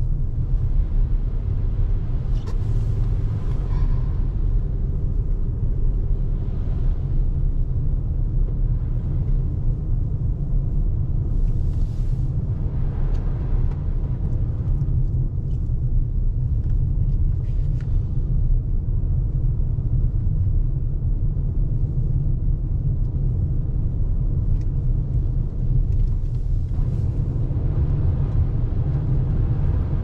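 Steady low road and tyre rumble of a 2021 Toyota RAV4 Hybrid driving on a snowy, slushy road, heard inside the cabin. Brief hissing swells come and go a few times.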